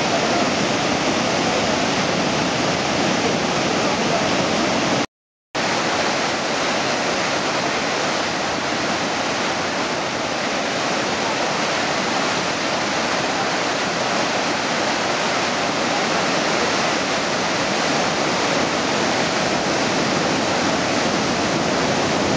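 Floodwater rushing steadily through a masonry reservoir spillway and churning as white water below it. The sound cuts out for about half a second around five seconds in.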